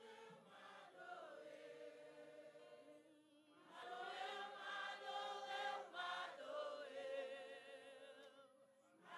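Church congregation and worship singers singing a slow hymn a cappella, with no instruments. The singing is faint, with a soft held phrase at first and a fuller phrase from about four seconds in.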